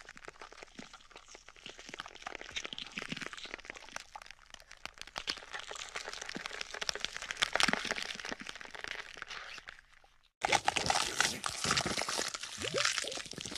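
Dense, irregular crackling and crunching, like something being crinkled or crushed close to the microphone. It breaks off briefly about ten seconds in and comes back louder.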